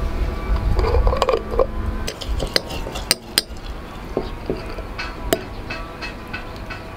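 Glass jar of chili oil handled, with a scraping about a second in, then a wooden chopstick clinking against the glass jar and a stainless steel cup in sharp separate taps as chili oil is scooped out.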